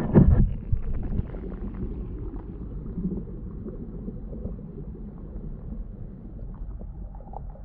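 Muffled low rumble of water picked up by an underwater camera's microphone, with a louder surge in the first half second and faint scattered clicks throughout.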